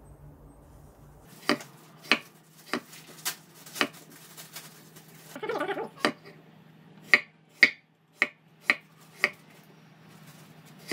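A large cabbage-shredding knife cuts down through an apple and knocks on a wooden cutting board with each slice. There are about a dozen sharp knocks, roughly two a second, in two runs. A brief scrape comes about five seconds in.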